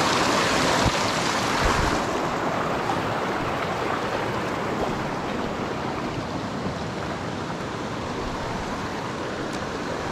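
Rushing water of a small mountain creek, a steady hiss that eases slightly after about two seconds, with two faint low bumps in the first two seconds.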